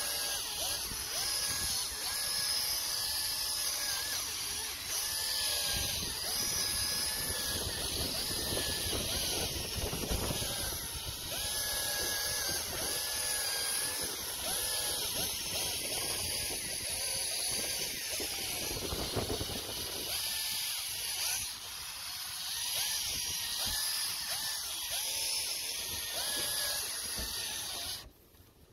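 A 12V cordless polisher whirring as it spins a foam pad against a plastic headlight lens, under background music with a melodic line. The sound drops out briefly near the end.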